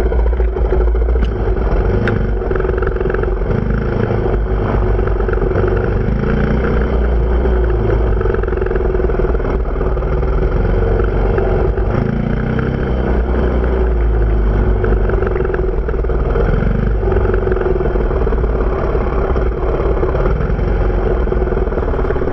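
Dirt bike engine running steadily under way, picked up close by a camera mounted on the bike, with a constant low rumble underneath.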